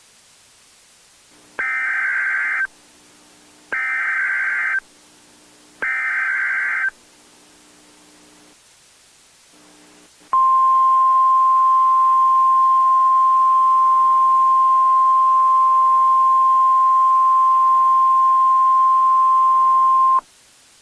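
Emergency Alert System SAME header: three short bursts of digital data tones, each about a second long and about two seconds apart. After a pause comes one steady single-pitch alert tone of about ten seconds, the NOAA Weather Radio 1050 Hz warning alarm, which cuts off sharply. Together they mark the start of a new warning message, here a tornado emergency.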